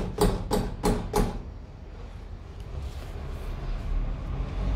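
A hand knocking on a Jeep Renegade's rear license plate, about three sharp knocks a second, stopping about a second and a half in. The plate is being tested for rattle after being packed with rubber to stop it vibrating.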